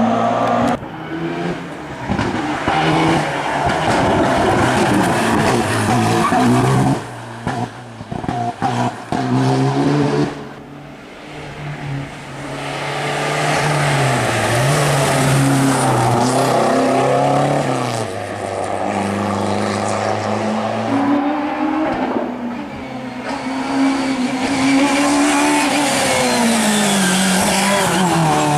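Rally cars driven hard one after another, engines revving high and dropping at each gearchange, with a brief quieter gap about ten seconds in. Near the end a Peugeot rally car's engine note falls as it brakes into a tight bend.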